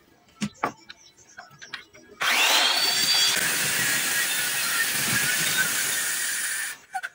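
A few knocks of wood being handled, then a handheld electric circular saw starts about two seconds in. Its whine rises as the motor spins up, and it cuts into an ulin (Bornean ironwood) beam for about four and a half seconds, then cuts off suddenly.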